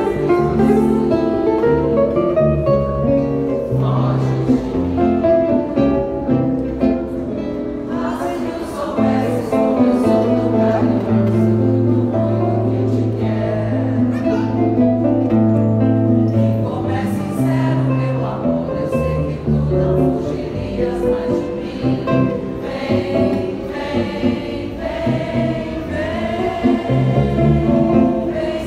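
Live choro played on two acoustic nylon-string guitars with a pandeiro. Busy plucked guitar lines run over long held low notes.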